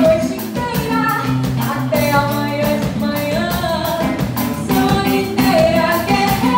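A woman singing a samba into a microphone, backed by a live band with a drum kit keeping a steady beat.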